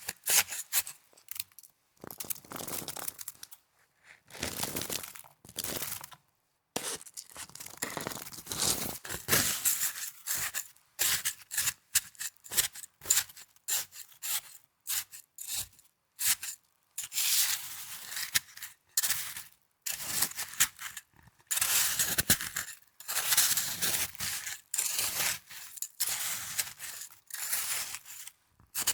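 Snow being handled by hand, in quick, irregular crisp strokes with short pauses between clusters.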